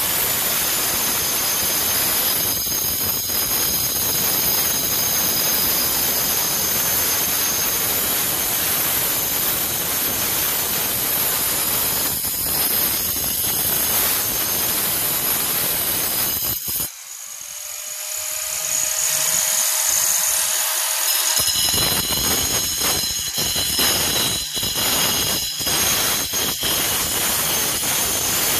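Angle grinder with a diamond disc running continuously as it cuts a deep groove into stone. About two-thirds through there is a brief lull of a few seconds, and then the full cutting noise resumes.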